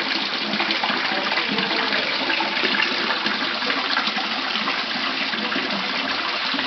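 Koi pond water running and splashing steadily, as from the pond's water outlet.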